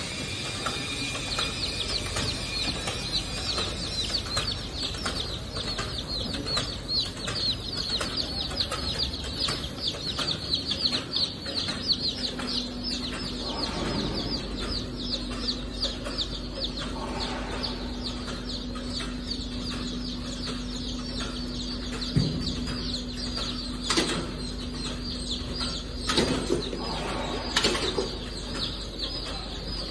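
Many day-old chicks peeping constantly, a dense run of short high falling chirps, over the clicking of a conveyor weighing-and-sorting machine. A steady hum joins about twelve seconds in, and a few sharp knocks come near the end.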